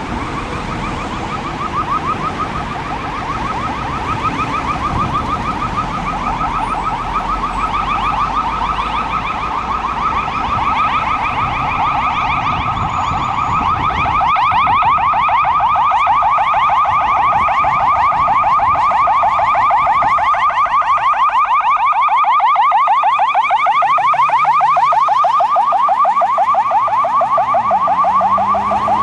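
Emergency vehicle siren in a fast yelp, sweeping up and down several times a second, over street traffic noise. It grows louder about halfway through.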